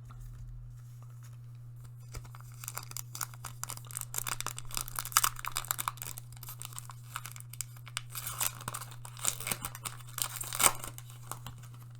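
Foil booster pack wrapper torn open and crinkled: a dense run of crackles starting about two seconds in, loudest near the end. A steady low hum runs underneath.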